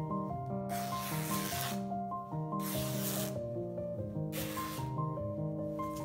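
White lining fabric being lifted and handled on a cutting table: three swishing rustles of cloth, each about a second long, over soft background music.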